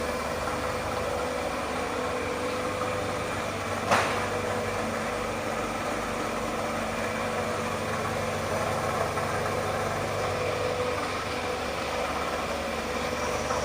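Toyota Camry ACV30's 2AZ four-cylinder engine idling steadily with a growl ('ngorok') from the water pump. The owner traced it with a stethoscope and thinks the pump may have play in it. There is one brief click about four seconds in.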